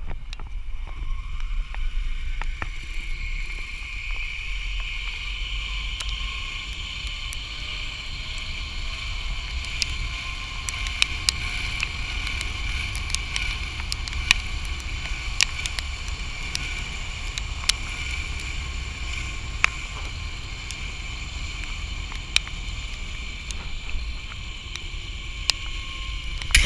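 Zip line trolley pulleys running along the steel cable: a steady high whir, with wind rumbling on the microphone and scattered sharp clicks.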